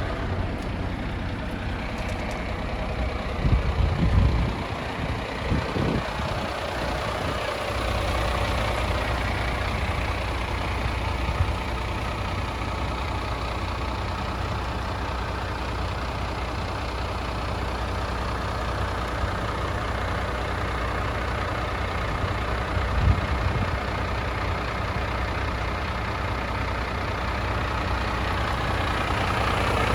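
Heavy diesel engine idling steadily, with a few brief louder thumps about four and six seconds in and again near the end.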